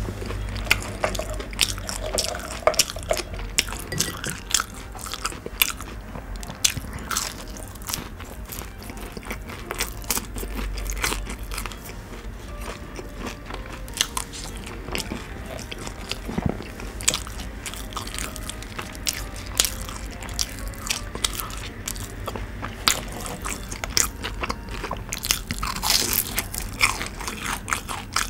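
Close-miked chewing and crunching of crisp fried fast food, a steady run of crackly crunches, with a denser burst of loud crunches near the end.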